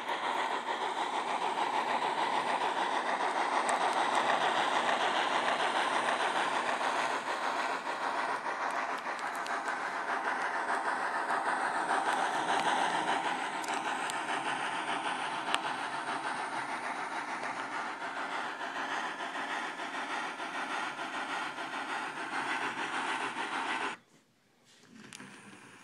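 Model B&O 0-10-0 steam locomotive with a TCS WOW Sound decoder playing its steam running sounds through the on-board speaker: a steady hissing chuff. It cuts out suddenly near the end.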